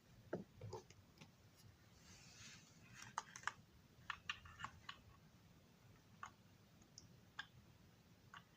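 Faint, scattered small clicks and taps of small hard objects being handled, bunched together about three and four seconds in, with a soft brief hiss a little after two seconds.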